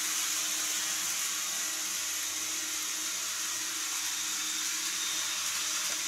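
N-scale model train running on its track, a steady whirring hiss from the motor and wheels that fades slightly as the train moves off.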